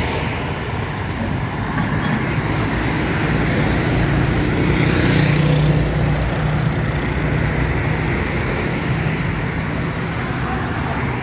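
Road traffic running past, a steady wash of vehicle noise; one vehicle's engine grows louder and passes close about halfway through.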